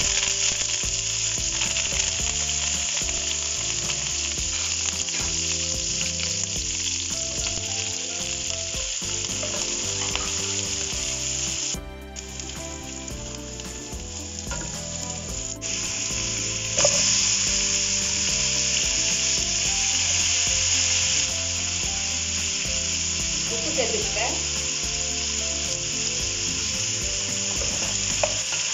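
Sliced onions, chillies and curry leaves sizzling in hot oil in a wok while a wooden spatula stirs them. The sizzle drops quieter for a few seconds near the middle, then comes back louder.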